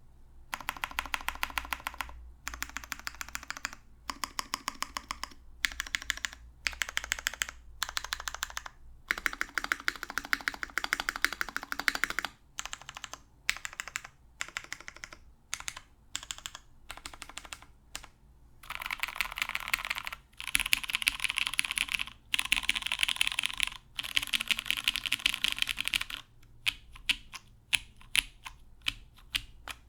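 Typing on a custom mechanical keyboard with lubed Cherry MX Brown tactile switches on a UHMWPE plate and Cherry doubleshot keycaps. Bursts of rapid keystrokes come with short pauses between them, thinning to scattered single key presses near the end.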